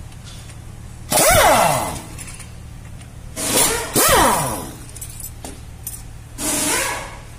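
Metal clinking and scraping with a ringing, falling tone, in four bursts, as tools and metal parts are handled during brake work, over a steady low hum.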